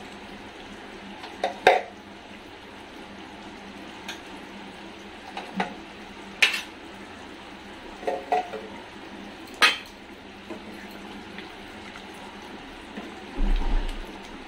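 Mutton curry simmering in a kadai on a gas burner: a steady hiss with several sharp pops from the thick bubbling gravy. Near the end a wooden spatula stirs the curry and scrapes the pan.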